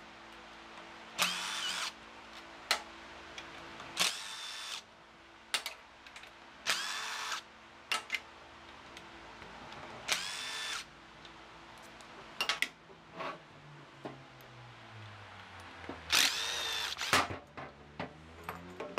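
DeWalt cordless impact driver spinning out screws in five short runs, each under a second, its motor whine rising as it spins up; the longest run comes near the end. Small clicks of handling fall between the runs.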